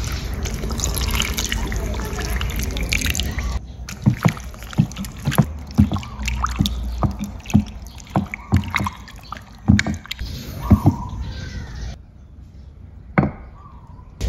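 Water poured into a glass bowl of raw chicken wings, running steadily for about three and a half seconds. Then a hand works the wet wings around the bowl, giving irregular wet slaps and clicks, roughly three a second, which die down near the end.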